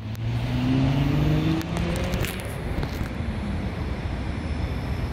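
Car engine accelerating hard, its note rising in pitch and fading out about two and a half seconds in, leaving steady open-air background noise.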